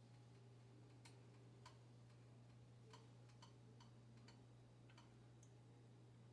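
Near silence: a low steady hum with faint, irregular ticks and pops from a pan of cooking oil heating on the stove.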